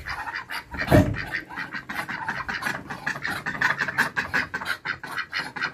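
Ducks close by, with a rapid run of soft clicks and scratches, like bills and feet working, and faint calls, plus one louder, lower sound about a second in.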